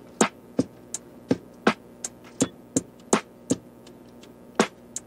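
Background music: a sparse electronic drum beat of sharp hits, about three a second, with a short break about three and a half seconds in.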